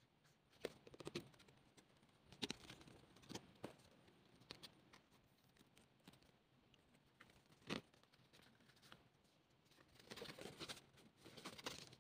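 Faint handling of paper and card photocards and postcards: scattered taps and clicks as cards are picked up, stacked and set down, with a longer rustle near the end.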